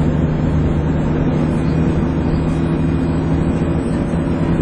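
Dennis Trident 2 double-decker bus under way, its engine holding a steady drone with the vacuum-cleaner-like whine that enthusiasts call 'hoovering'.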